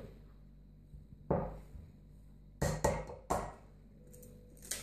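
Light taps and knocks of eggs being cracked on the rim of a small glass bowl and the bowl set on a stone worktop: one tap about a second in, a quick cluster of three or four around three seconds, and one more near the end.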